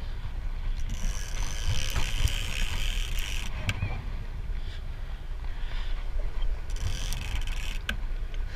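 Boat engine rumbling under wind on the microphone, with the mechanical clicking and whirring of a large big-game fishing reel as line is wound in against a marlin.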